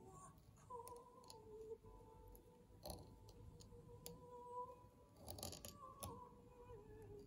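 Near silence: soft clicks from handling the bobbin holder and thread at a fly-tying vise, one about three seconds in and a short cluster around five and a half to six seconds, over a faint held tone that shifts pitch now and then.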